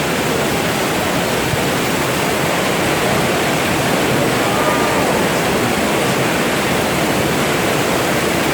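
Heavy rain pouring steadily, a loud even hiss with no breaks.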